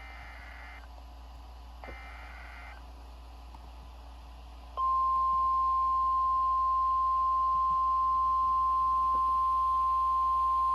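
The tail of an Emergency Alert System SAME header: two short bursts of warbling data tones. Almost five seconds in, the loud, steady 1050 Hz NOAA Weather Radio warning alert tone begins and keeps sounding. It signals that a warning message follows, here a severe thunderstorm warning.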